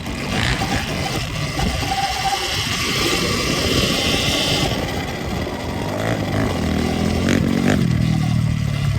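Sur-Ron Ultra Bee electric dirt bike ridden over rough, rocky ground: continuous riding noise, with several sharp knocks from about six to eight seconds in.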